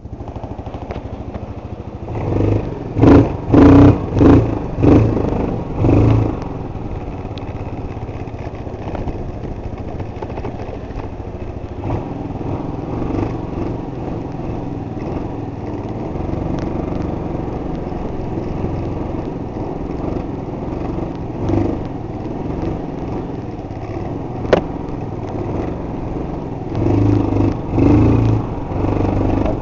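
Linhai 257cc single-cylinder scooter engine, revved in a quick string of five short blips early on, then running steadily while the scooter rides along, with a few more revs near the end. A single sharp click is heard a few seconds before the end.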